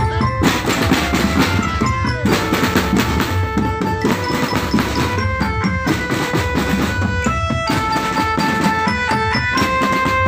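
Marching drum band playing: snare and bass drums beating steadily, with drum rolls, under a melody of held notes.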